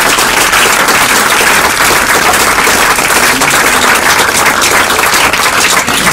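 A seated audience of a few dozen applauding, with steady, dense clapping.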